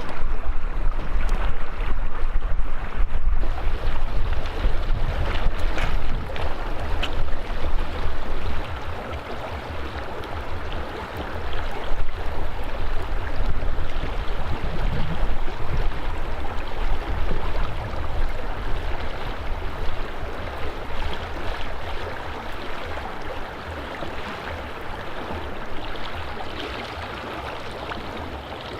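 A mountain stream rushing steadily, with wind buffeting the microphone in gusts that ease off toward the end.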